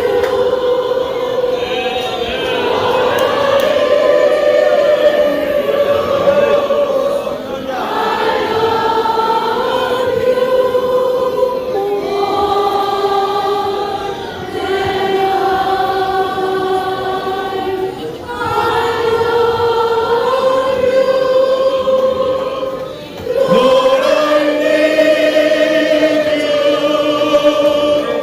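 Church congregation singing a worship song together in long held phrases, with short breaks between them every few seconds.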